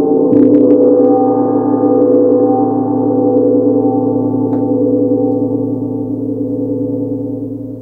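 Tibetan gong struck with a soft felt-headed mallet: a few light strokes about half a second in keep it going, then it rings on in a sustained, shimmering wash of several tones. The ring begins to die away near the end.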